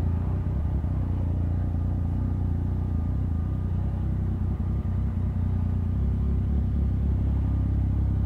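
Motorcycle engine running at a steady speed while being ridden, a low steady rumble with road and wind noise.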